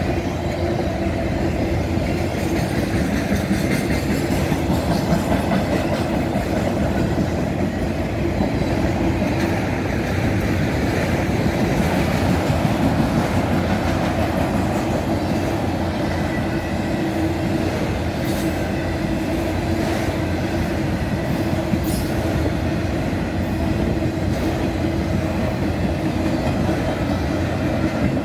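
Autorack freight cars of a long freight train rolling steadily past, steel wheels running on the rails in a continuous even rumble.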